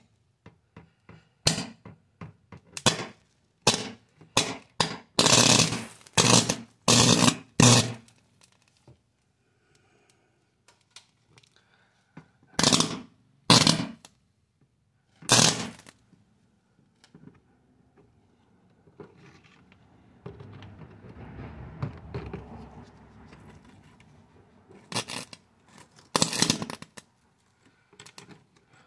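Electric arcing as a sparker's probe touches a charred circuit board: a quick run of short, sharp bursts, then a few more after a pause. A quieter low rumble comes past the middle.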